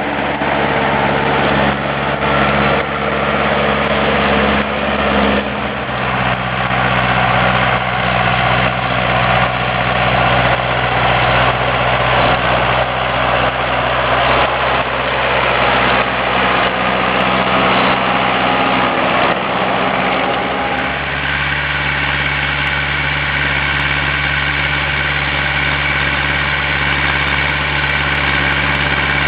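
Ursus C-355 tractor's two-cylinder diesel engine running steadily while pulling a plough. Its tone shifts about two-thirds of the way through, taking on a higher, whinier edge.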